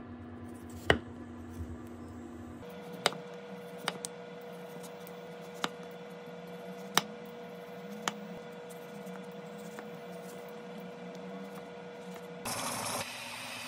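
Kitchen knife slicing a peeled potato into thin rounds on a wooden cutting board: a sharp tap each time the blade meets the board, about six spaced irregularly, over a low steady hum. Near the end a louder steady hiss comes in.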